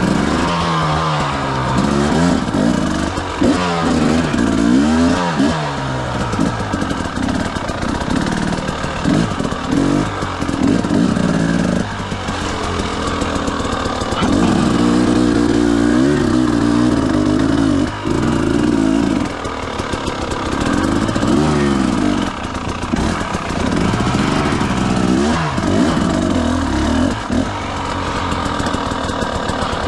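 Motorcycle engine under way, revving up and dropping again and again as the rider accelerates and shifts or backs off, the pitch climbing and falling every second or two over a steady rushing noise.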